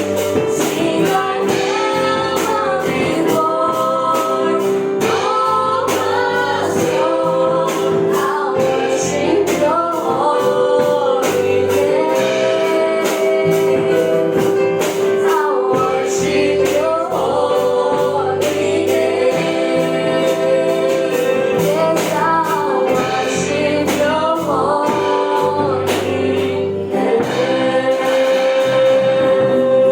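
Gospel-style music: singing voices over a steady held note, with a regular beat.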